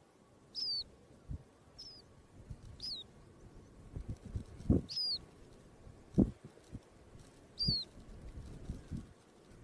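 A bird calling with short, high chirps that fall in pitch, repeated about once every second or so, over soft low thumps and rustling.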